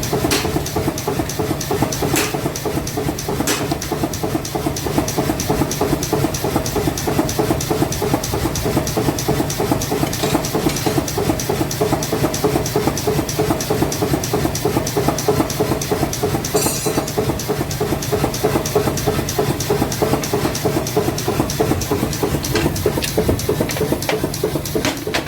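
A machine running steadily with a fast, even clatter, with a few sharper knocks now and then.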